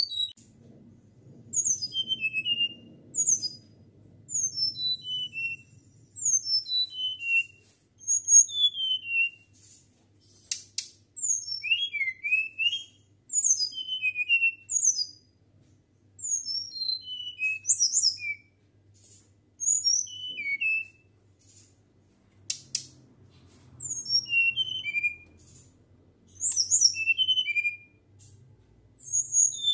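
Caged flycatcher singing a flute-like song: short bursts of high whistled notes, most sliding downward, repeated about every two seconds with brief pauses between.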